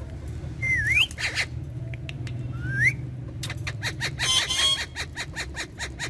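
Ringneck (rose-ringed) parakeets calling. Two short rising whistles come about one and three seconds in, then a burst of harsh, rapid chattering around four seconds in.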